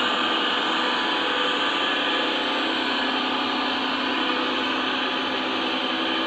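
Model coal train running on the layout track: a steady whirring rumble of the locomotives' motors and the loaded hopper cars' wheels rolling past.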